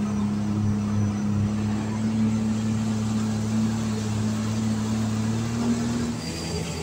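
Sea-Doo jet boat's engine running at a steady slow trolling speed, a constant low hum that drops away about six seconds in.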